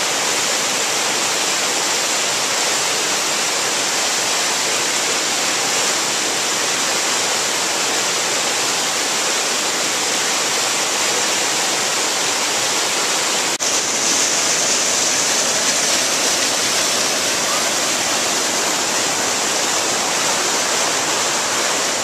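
Mountain creek rushing over rocks in small cascades and a waterfall: a steady, loud, hissing rush of water. A brief click about two-thirds of the way through, after which the rush is slightly louder.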